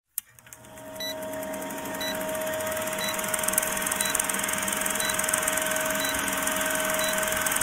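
Film countdown leader sound effect: the steady whir and crackle of an old film projector fading in, with a short beep on every second of the countdown.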